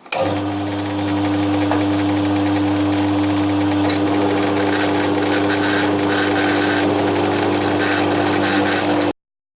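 Milling machine running with its cutter taking a cut along the edge of a cast iron bandsaw table: a steady hum with a fine, rapid chatter. It starts abruptly and cuts off suddenly near the end.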